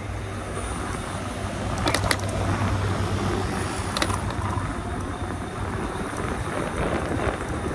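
Fat-tyre e-bike ridden over a dirt trail: the tyres crunch on the loose surface with steady rattling, a low hum underneath, and sharp knocks about two and four seconds in.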